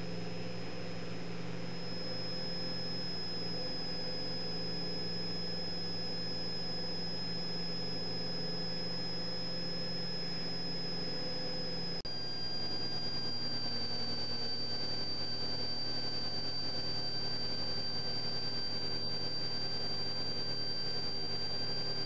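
Steady drone of a Cessna 172's engine climbing after takeoff, heard through the cabin with a thin, steady high whine over it. About halfway through the sound jumps slightly louder and its pitch shifts a little, at a cut in the recording.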